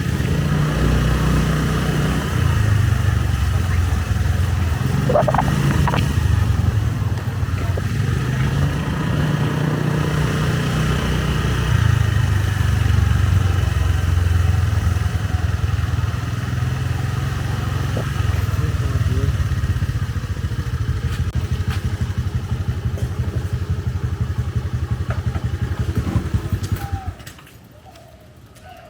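Motorbike engine running under way, its pitch stepping up and down with speed, then stopping abruptly near the end.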